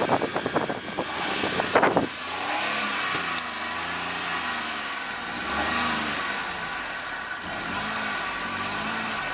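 Car engine cranking in quick uneven pulses, catching about two seconds in, then revved up and down over and over as the accelerator pedal is pumped.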